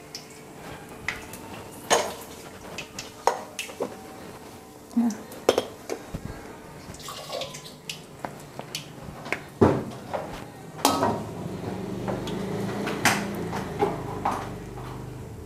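Metal kitchen utensils clattering against a wok and bowls: a scatter of sharp clinks and knocks, a few of them loud, several seconds apart.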